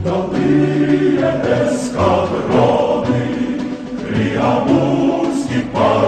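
A choir singing a song, with long held notes and new phrases starting about every two seconds.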